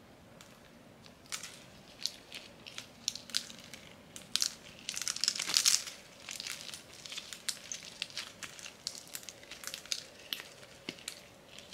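Soft, sticky slime squished and kneaded between the fingers, giving a run of crackles and small pops as air is squeezed through it. The crackling is densest and loudest about five seconds in.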